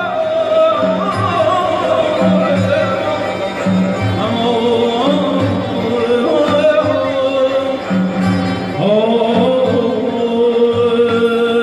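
Live Persian traditional music: a male singer holds long, wavering ornamented notes over a steady frame-drum beat on the daf, with a bowed kamancheh and a plucked long-necked lute accompanying.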